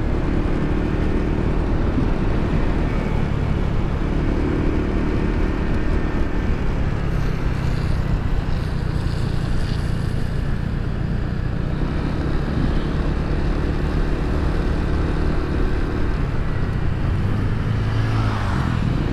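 Motorcycle engine running at road speed with a steady rush of wind over the helmet-mounted microphone. The engine note rises and falls a few times.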